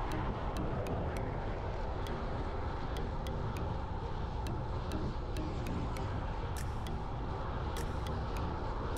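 Steady rush of wind and road noise while riding, with a deep rumble, and sharp ticks several times a second.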